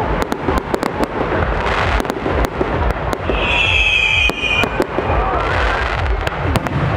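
Fireworks display: large-calibre aerial shells and comets firing and bursting in rapid succession, a dense run of sharp bangs over a low rumble. A high whistle rises out of it from about three seconds in and lasts a second and a half.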